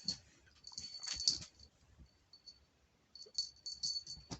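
Small jingle bell on a cat's toy ringing in irregular bursts of jingling as the cat bats it about, with soft knocks, quieter for a moment in the middle.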